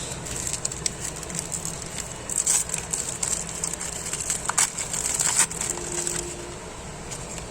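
Foil trading-card packet being crinkled and torn open, with the cards inside rustling as they are handled: irregular crackling, busiest in the middle.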